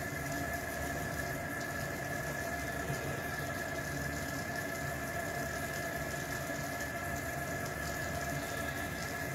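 Kitchen faucet running steadily into a sink, with a steady high tone in the rush of water.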